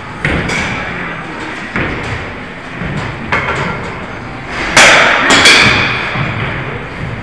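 A series of thuds and knocks, roughly one every second and a half, with a louder sharp clatter about five seconds in and another half a second later.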